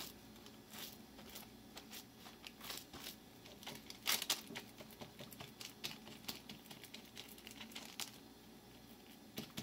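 Faint, scattered crinkling and rustling of wax paper lining a meatloaf pan as the raw loaves are pressed and reshaped by hand, with a slightly louder crinkle about four seconds in.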